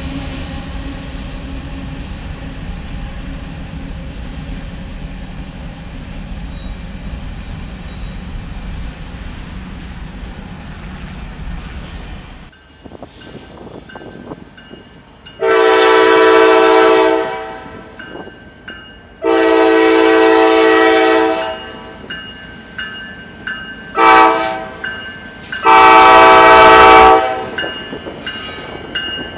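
Freight train of grain hopper cars rolling past with a steady rumble that cuts off about twelve seconds in. Then a GE ES44AC diesel locomotive's air horn sounds the grade-crossing signal: two long blasts, one short and a final long one.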